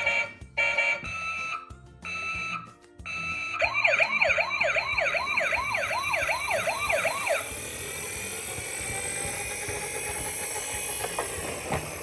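Toy emergency vehicle's electronic siren in a fast yelp, its pitch sweeping up and down between two and three times a second for about four seconds and then stopping. Before it come a few short, high, steady beeps with gaps between them.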